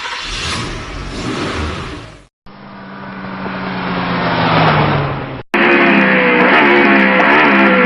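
Car engine sound clips cut together: a short rush of engine noise, then an engine getting louder as it revs or passes with a slightly falling pitch. About five and a half seconds in, a louder guitar music track cuts in.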